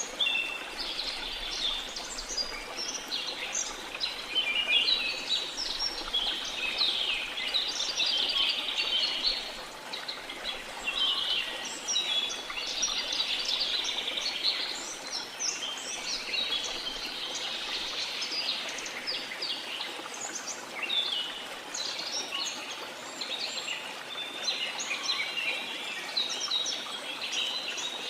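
Many birds chirping and singing at once in a dense, continuous chorus, over a steady rush of falling water.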